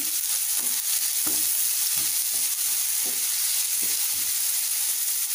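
Shredded cabbage, carrot and capsicum sizzling in hot oil in a non-stick frying pan while a spatula stirs and scrapes them in repeated strokes about twice a second. The vegetables are being lightly stir-fried to a half-cooked stage.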